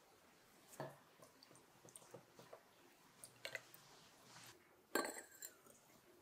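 A few light knocks and clicks of small hard objects being handled or set down. The loudest, about five seconds in, is a sharper clink with a short ringing tail.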